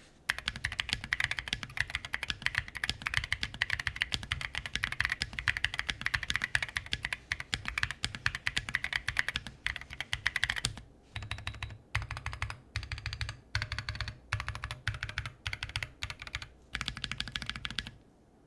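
Bakeneko 60 mechanical keyboard fitted with CannonKeys Neapolitan Ice Cream tactile switches being typed on. There is a fast, continuous stream of key clacks for about ten seconds, then the typing comes in short bursts with brief gaps.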